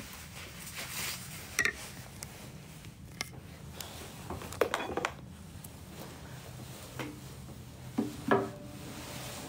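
Objects being handled: a few scattered knocks and rubbing sounds over a low steady hum, with a short pitched sound about eight seconds in.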